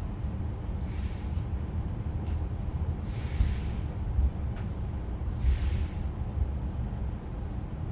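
Steady low rumble of a regional train heard from inside the carriage, with three short hisses of air: about a second in, a longer one around three seconds, and another near six seconds.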